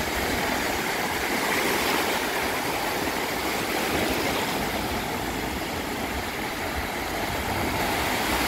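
Small Black Sea waves breaking and washing up a sandy shore in a steady rush of surf, with wind rumbling on the microphone.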